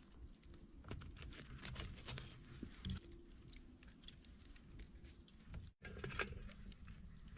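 Faint light taps, clicks and rustling of hands handling small camp cooking items, over a low rumble.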